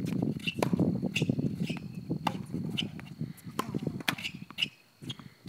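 Tennis balls knocking off racket strings and bouncing on a hard court during a rally: a series of sharp knocks over a low background rumble, dying away to a short lull near the end.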